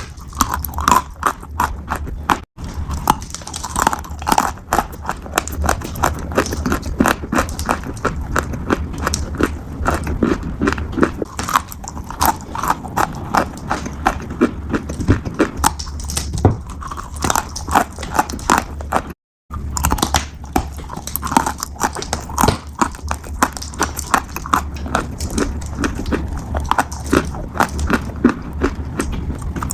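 A piglet crunching and chewing food: a dense run of quick crunches and chomps. It breaks off for an instant twice, about two and a half seconds in and about nineteen seconds in.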